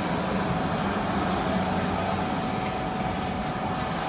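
Hydraulic baling press's electric motor and pump running with a steady hum and a constant tone.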